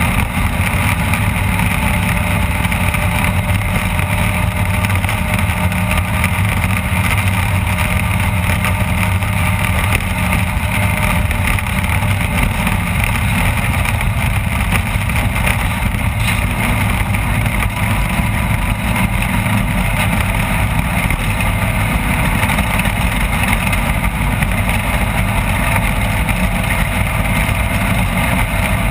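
Off-road race vehicle's engine running loudly and steadily, a constant low drone that holds an even pitch, with no let-up.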